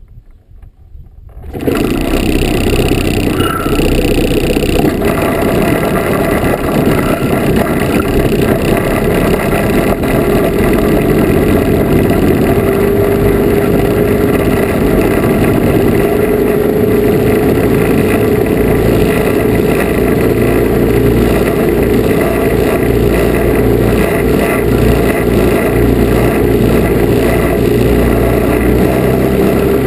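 The twin small two-stroke engines of a Lazair III ultralight come in abruptly about one and a half seconds in, then run steadily at taxi power with a slowly rising drone.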